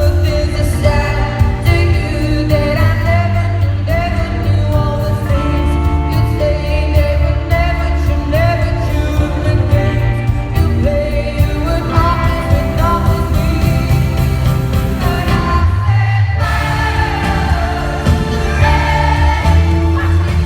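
Live pop ballad: a woman's lead vocal sung over a full band with heavy bass, with a brief drop in the accompaniment near the three-quarter mark before it swells again.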